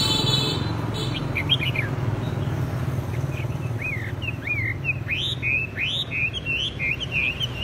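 Caged red-whiskered bulbuls calling back and forth, short rising and falling chirps that come sparsely at first and then thick and fast from about five seconds in: a bulbul sparring in song against a decoy bird. A steady low hum runs underneath.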